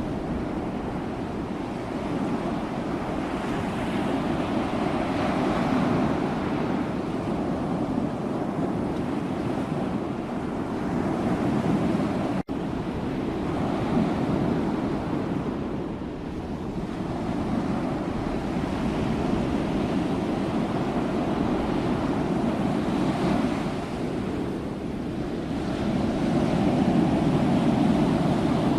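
Sea waves and surf: a continuous wash of water that swells and ebbs every few seconds, with a momentary cut about halfway through.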